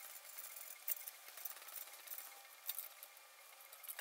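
Faint metal clicks and clinks of hand work on engine parts, with two sharper ticks about a second in and near three seconds.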